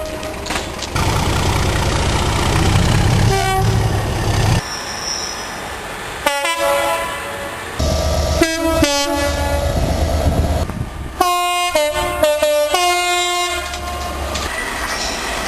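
Diesel locomotive two-tone air horns sounded in a string of short blasts, switching between a high and a low note, heard in several spliced trackside clips. In the first few seconds a train runs past with a low rumble; the horn blasts come in the middle and latter part.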